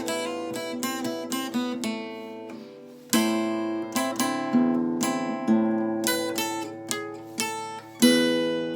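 Solo acoustic guitar playing an enka melody note by note over chords, with fuller strummed chords about three seconds in and again near the end.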